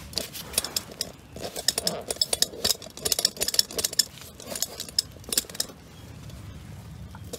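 Small metal tools and sockets clinking and rattling as they are handled, a quick irregular run of sharp clinks that stops about five and a half seconds in.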